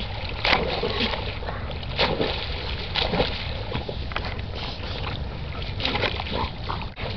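Dogs swimming and paddling in water, with repeated splashes and sloshing over a steady low rumble.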